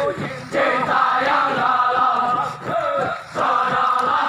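Group of soldiers chanting a running cadence in unison as they jog, in short sung phrases with brief pauses between them.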